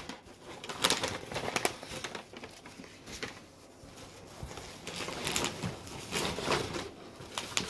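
A package being opened and handled: its wrapping rustles and crinkles in irregular bursts, with a few sharp clicks.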